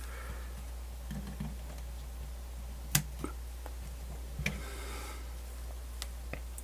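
A few faint clicks and small handling sounds from hands working with double-sided tape and small parts, the sharpest about three seconds in, over a steady low hum.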